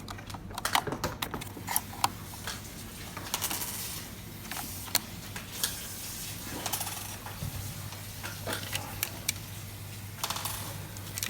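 Irregular clicks and short plastic rattles from handling a camera's AC power adapter and its cable while plugging it in, over a steady low hum.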